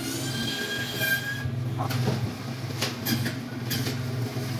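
Butcher's meat band saw running with a steady motor hum as its blade cuts through a pork rib and loin cut, with a high whine from the blade in the first second or so. A few sharp knocks follow later.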